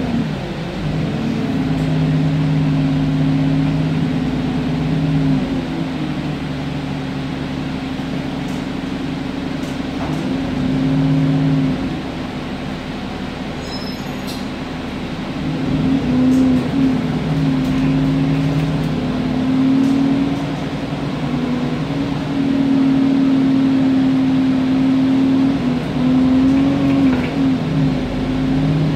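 Alexander Dennis Enviro400 double-decker bus heard from the upper deck as it drives. The engine and transmission drone steadily, and their pitch rises and falls several times as the bus speeds up, changes gear and slows.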